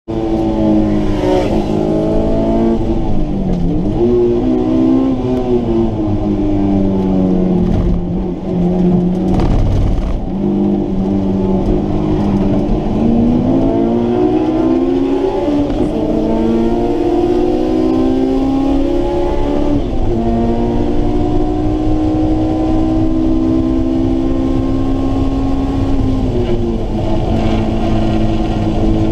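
Honda S2000's four-cylinder engine, heard from inside the cabin, driven hard on track: its note climbs steeply through the revs, drops sharply at each gear change, and climbs again, several times over.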